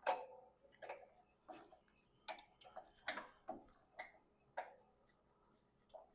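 Faint, irregular metallic clicks and clinks of hand tools working a mower's drive pulley loose, roughly two a second, the first the loudest.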